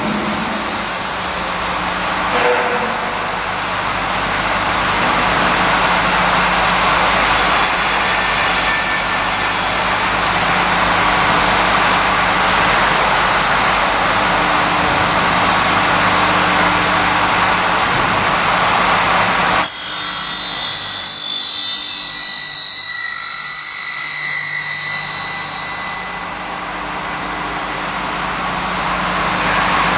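Curtain wall end milling machine running, a steady motor hum under loud cutting noise. About two-thirds through the sound changes abruptly to several high whining tones for a few seconds, then returns to the steady running noise.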